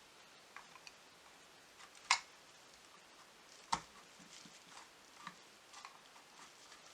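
Light clicks and taps of small plastic parts being handled and pressed together on an H0 model locomotive, with two sharper clicks about two seconds and nearly four seconds in.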